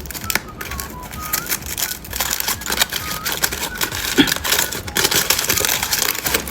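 Close-miked crunching and crackling of candy being eaten: a dense, irregular stream of small cracks and clicks.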